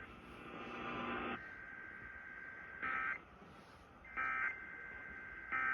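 Emergency Alert System end-of-message: three short bursts of SAME data tones, the warbling digital screech that closes an EAS alert, spaced about a second and a half apart. A steady buzz runs for the first second or so before them.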